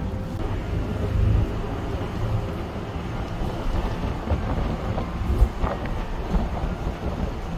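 Bus moving along the road, heard from inside: a steady rumble of engine and road noise, with one short knock a little past the middle.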